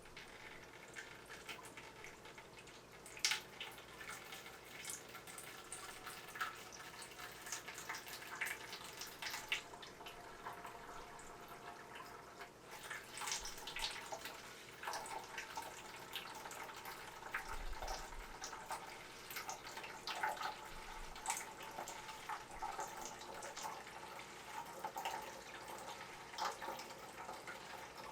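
Aquarium water splashing and dripping in small, irregular splashes and drips, with light ticks throughout.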